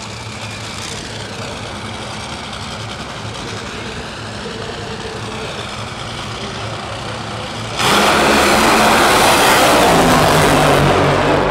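Two Top Fuel dragsters' supercharged nitromethane V8s running steadily at the starting line. About eight seconds in comes a sudden, far louder full-throttle launch that holds for about four seconds.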